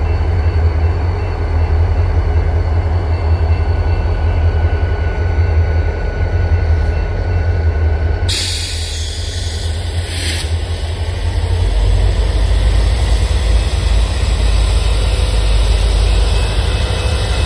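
Union Pacific diesel locomotives running at a road crossing: a deep, steady engine rumble, with an abrupt change to a brighter hiss over the rumble about eight seconds in.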